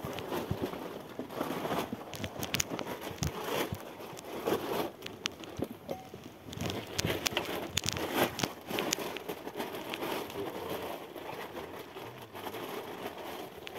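Close rustling and crinkling with many scattered light clicks and knocks.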